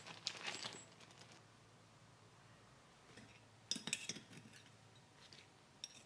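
Light metallic clinks and clatter of small metal parts and tools being handled on a workbench: a burst of clinks in the first second, another about four seconds in, and a few faint clicks near the end.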